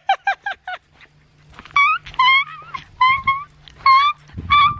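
Small dog whining and yipping in short high-pitched cries: a quick run of them in the first second, then a string of longer cries that bend upward.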